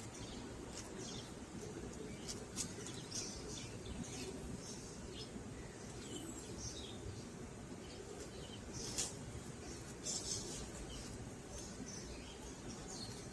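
Lovebirds chirping: short, high chirps scattered irregularly throughout, with a louder burst about nine seconds in, over a steady low background hum.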